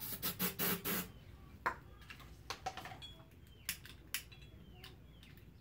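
Metallic clinks and taps from an air-hose chuck and tools being handled at a lawn tractor tire's steel rim: a quick cluster of clicks in the first second, then scattered single clicks.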